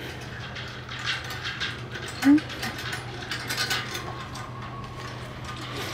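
Wobbly chain-hung footbridge with chain-link mesh sides and walkway rattling and clanking irregularly as people walk across it, its hanging chains jangling. A short, louder note sounds about two seconds in.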